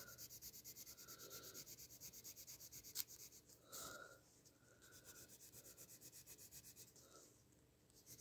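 Pencil lead shading on paper: faint, quick back-and-forth scratching strokes, several a second, with two short pauses. A single sharp click about three seconds in, and a brief rustle just after.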